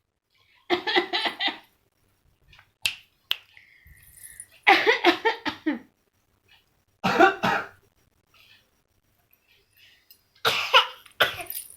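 A nine-month-old baby fake coughing in four short bursts, each a quick run of several little coughs.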